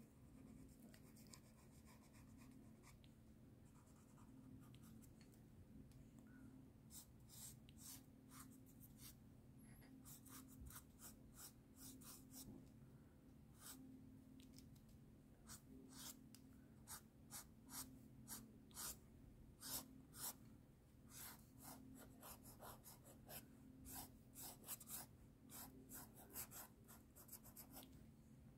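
Fine-tip ink pen scratching across sketchbook paper in many quick, short strokes, sparse at first and coming thick and fast from about seven seconds in, with a low steady hum underneath.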